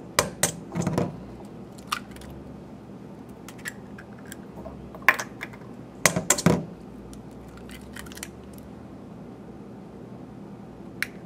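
Two eggs cracked one after another on the rim of a stainless steel mixing bowl: a few short sharp taps and shell cracks with quiet gaps between them.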